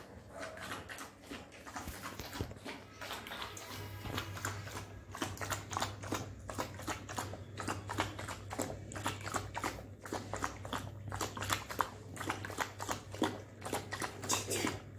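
A dog lapping milk from a bowl: quick, wet tongue clicks, several a second, in an unbroken run.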